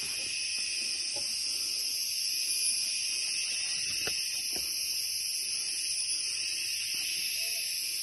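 Rainforest insect chorus buzzing steadily in high, even bands, with a couple of faint knocks about halfway through.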